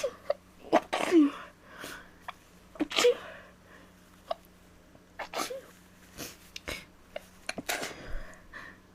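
A woman sneezing several times in a row from a head cold, the strongest sneezes about a second and three seconds in and another near the end, each a sudden burst with a short voiced tail, with sniffs and small breaths between.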